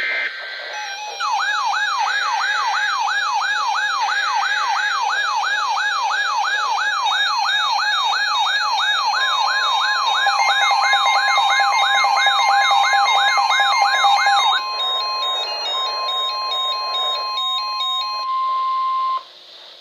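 NOAA Weather Radio emergency alert: short screeching SAME data bursts at the start, then an electronic yelp siren sweeping up and down about two and a half times a second, joined about halfway in by the steady 1050 Hz warning alarm tone. The siren stops about three-quarters through, giving way to stepped electronic beeping under the continuing tone, which cuts off just before the end.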